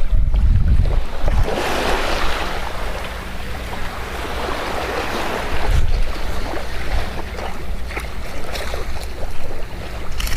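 Surf breaking and washing up the beach, with a wave's wash swelling about two seconds in, and wind buffeting the microphone in low rumbling gusts.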